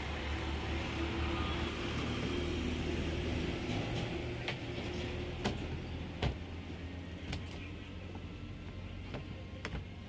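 Twin-tub washing machine's spin dryer switched off and coasting down: a steady motor hum that slowly fades, with several short, sharp knocks in the second half.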